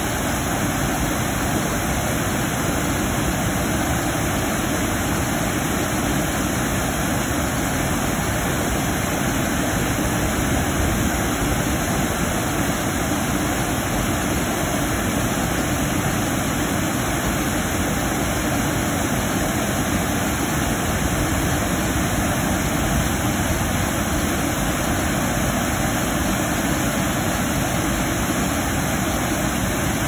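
Water pouring over a concrete weir and through a sluice gate into a churning pool: a loud, steady rushing that stays the same throughout.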